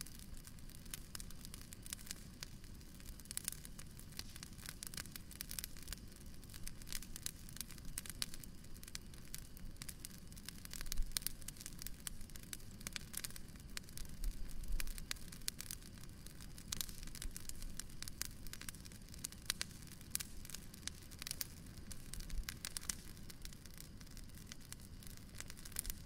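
Outdoor bonfire crackling, with irregular sharp pops and snaps over a low rumble, and a few louder flurries of crackles around the middle.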